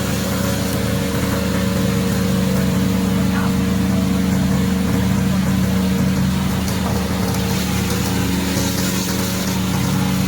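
Engine of a remote-controlled tracked slope mower running steadily at an even speed.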